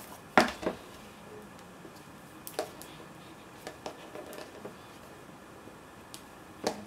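Scattered light rustles and small taps of hands handling a paper-covered cardboard mini album while wrapping a cord around it and tying a bow. The loudest tap comes about half a second in.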